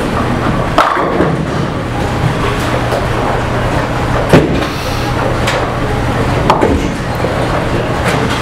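Bowling-alley din: balls rolling and pins clattering across the lanes over a steady low hum, with sharp crashes about a second in, near the middle, and about six and a half seconds in.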